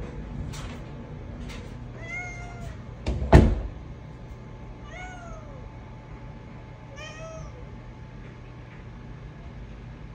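Manx cat meowing three times, each call rising and then falling, as it asks to have a closed door opened. A single loud thump sounds about three seconds in, between the first and second meows.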